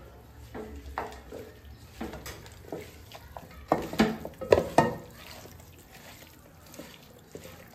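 Marinated chicken pieces being mixed by hand in an aluminium pot: irregular wet squishing and knocks against the pot's side, busiest around the middle.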